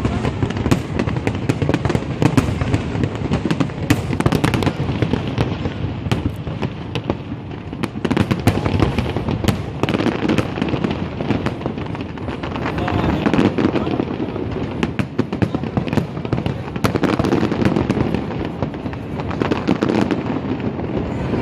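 Fireworks display: a continuous barrage of bangs and crackling, many bursts overlapping with no break.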